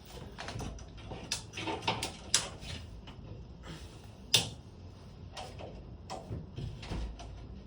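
Irregular metal clicks and knocks of garage door cable and spring hardware being handled and secured, with one sharper knock about four seconds in.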